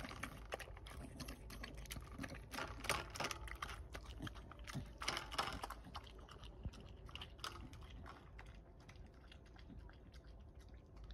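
Staffordshire bull terrier eating from a stainless steel bowl: quick chewing and lapping smacks with clicks of teeth and tongue against the metal, thinning out in the second half.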